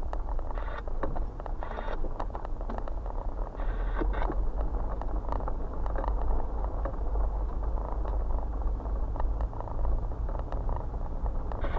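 A vehicle driving slowly over a rough dirt and gravel surface, heard from inside the cabin: a steady low rumble with many small crackles and clicks from the tyres on loose stones.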